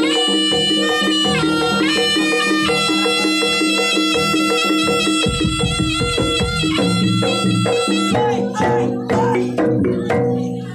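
Live jaranan gamelan music accompanying the dance. A shrill reed pipe holds and bends long melody notes over a steadily repeating pattern of gongs and drums. After about eight seconds the held melody drops out and the music turns choppier and more percussive.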